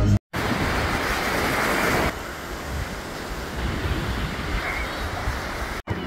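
Steady rushing of sea surf mixed with wind buffeting the microphone, louder for the first two seconds and then a little softer. The sound cuts out for a moment just after the start and again just before the end.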